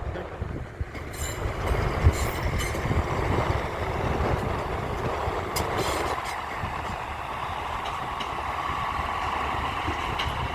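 Diesel passenger train pulling out of the station: a steady engine and wheel rumble, with a faint high steady tone in the last few seconds.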